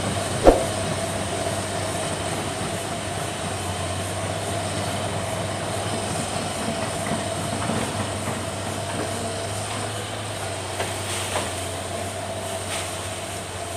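Hitachi Zaxis crawler excavator running, its diesel engine droning steadily as the machine swings and travels on its tracks. One sharp knock about half a second in, and a few lighter knocks near the end.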